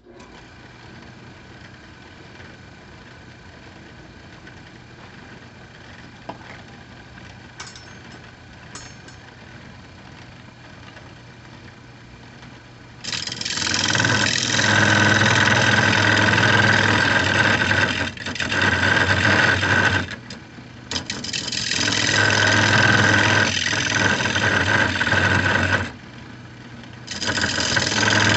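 Wood lathe running with a steady motor hum while a cherry bowl blank spins. About halfway through, a turning tool cuts into the spinning cherry wood with a loud, rough cutting noise over the hum, dropping out briefly three times as the tool comes off the wood.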